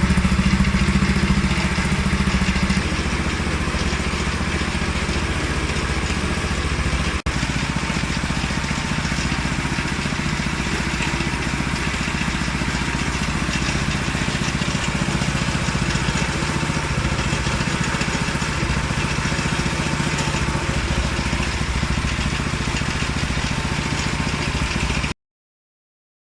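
Small 6.5 hp petrol engine of a sugarcane juice machine running steadily, a little louder for the first couple of seconds. The sound drops out for an instant about seven seconds in and cuts off suddenly near the end.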